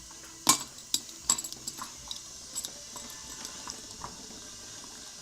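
A series of sharp metallic clinks and taps, the loudest about half a second in, then lighter ones thinning out, like hand tools or metal parts being handled and set down.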